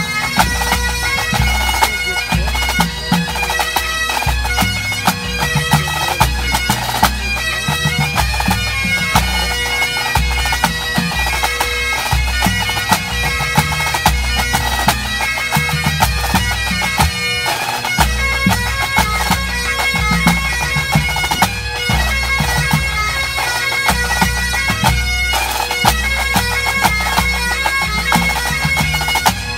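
A full pipe band playing a medley: massed Great Highland bagpipes carrying the tune over their steady drone, with snare drumming and bass drum beats underneath.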